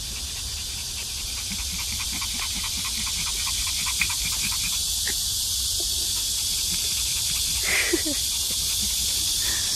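Small dog panting quickly and evenly with its tongue out, cooling off after a long walk in the summer heat, over a steady high drone of cicadas.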